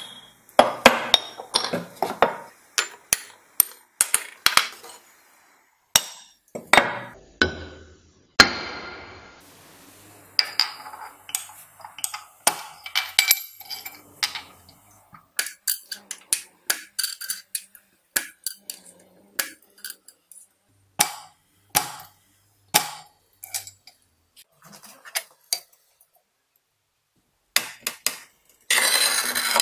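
Smalti glass being cut: a long run of sharp cracks and knocks, some with a short glassy ring, as the red pancakes are split on a hardie and then in a mosaic cutting machine. Near the end a wheeled glass cutter scores a line across a glass sheet, a brief scraping hiss.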